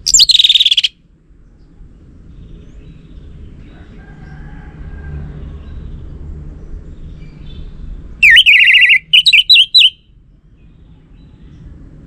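Orange-headed thrush (Geokichla citrina) singing loudly in two bursts: a short whistled phrase that falls in pitch at the start, then about eight seconds in a longer phrase followed by four quick short notes.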